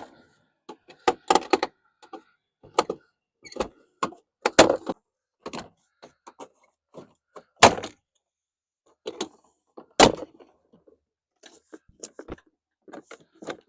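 Plastic retaining clips of a pickup's interior door trim panel snapping loose as the panel is pried off, a string of irregular sharp pops and knocks, with the loudest snaps a little past halfway and about two-thirds of the way through.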